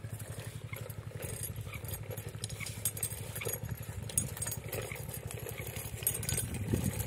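Plastic pull-along toy dog's wheels rolling over rough concrete, a steady rattling rumble with repeated light clacks from its moving plastic legs.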